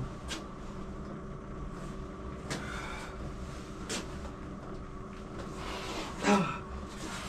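Knocks and clunks of a dirt bike being manhandled and wheeled about in a cramped space, over a steady low hum. About six seconds in there is a short, louder sound that falls in pitch.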